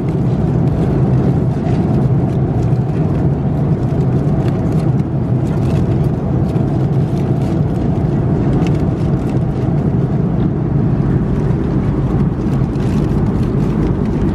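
Steady drone of an Airbus A330-200 cabin in flight, the air and engine noise strongest low down and unchanging. Light crinkling of aluminium foil is heard over it as the foil lid of a meal tray is handled and peeled back.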